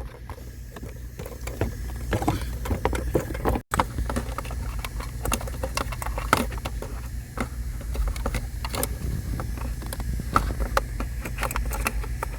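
Scattered clicks and knocks of parts being handled and fitted back together, over a steady low hum.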